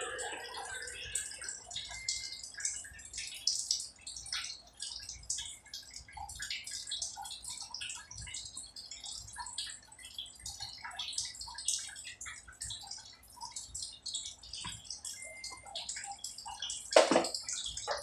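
Small irregular clicks, ticks and light scrapes of a screwdriver and wire being worked against the metal terminals of a water pump pressure switch, with a louder knock about a second before the end.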